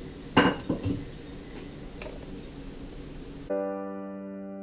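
A few light clicks and knocks of small tools and parts being handled on a work table, the loudest near the start. About three and a half seconds in, background music comes in suddenly as a single held electric-piano chord.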